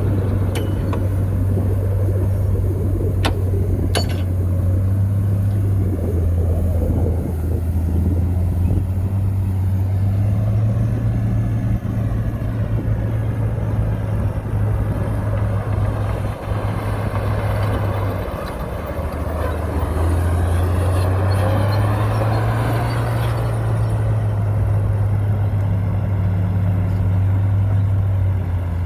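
Heavy earthmoving machine's diesel engine running steadily with a deep hum, its pitch rising a little about ten seconds in, dipping briefly past the middle and rising again. Two sharp knocks in the first few seconds.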